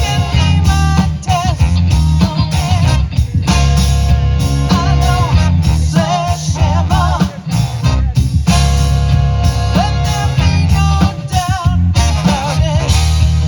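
A live horn band playing a funk-rock cover with brass, a drum kit and bass: a steady beat under wavering horn melody lines.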